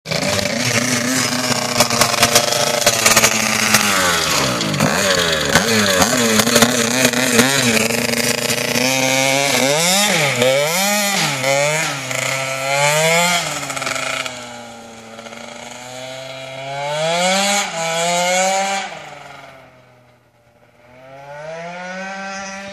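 Two-stroke Yamaha Aerox scooter engine, tuned with an 80cc kit, revving loud and rough close by for the first several seconds. Its pitch then rises and falls again and again as it rides off. It fades out about twenty seconds in and comes back rising near the end.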